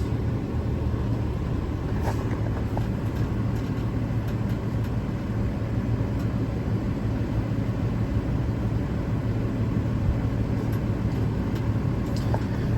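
An 8.9-litre Cummins diesel engine idling steadily, a constant low hum with no change in speed.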